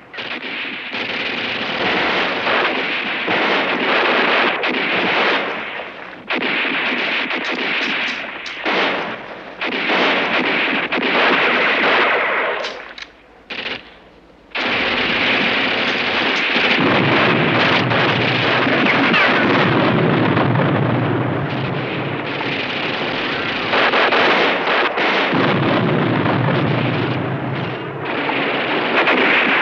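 Battle sound effects: dense, continuous rifle and machine-gun fire mixed with cannon shots and explosions. The firing drops away briefly about 13 seconds in, then resumes heavier, with a deep rumble of explosions.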